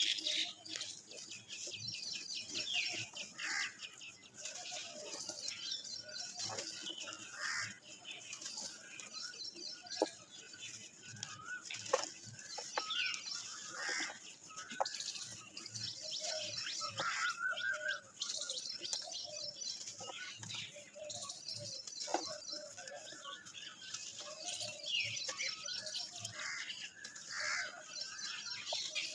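Soaked red dirt lumps being squeezed and crumbled by hand in a bucket of muddy water: wet squelching and sloshing with scattered crisp cracks as chunks break apart. Birds chirp in the background, one short high song repeating every couple of seconds.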